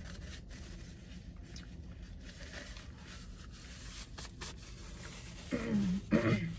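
Paper rustling and tearing as a brown fast-food paper bag and a paper napkin are handled. Near the end come two short hums of a voice.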